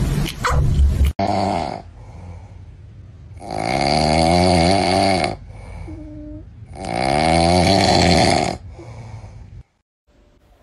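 A sleeping cat snoring: two long, loud snores about three seconds apart, with quieter snoring breaths around them.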